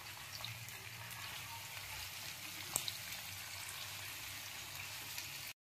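Jackfruit pieces deep-frying in hot mustard oil: a faint, steady sizzle with scattered small pops and a sharper click near the middle. It cuts off suddenly near the end.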